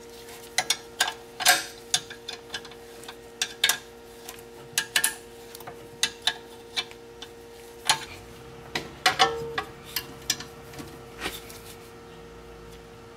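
Ratchet wrench clicking and metal tools clinking as the rear brake caliper bolts are tightened: irregular sharp clicks, some in quick clusters, over a faint steady hum.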